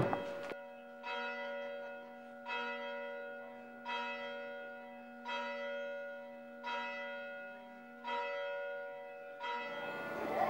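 A single church bell in the tower struck about seven times, roughly every second and a half, each stroke the same note ringing on and fading before the next. Near the end other outdoor sound cuts in.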